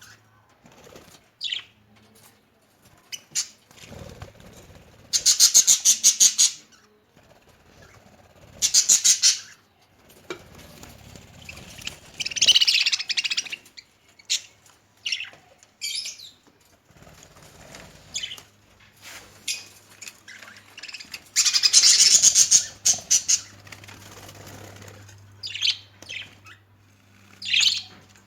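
Caged budgerigars chirping in short high calls, broken by several loud bouts of rapid wing flapping, the longest lasting about a second and a half.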